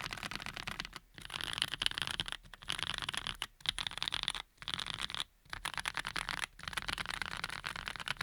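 Fast typing on a Graystudio Think6.5 V2 mechanical keyboard with lubed linear switches (Cherry bottom housings with Cream stems and tops). Keystrokes come in quick runs broken by short pauses.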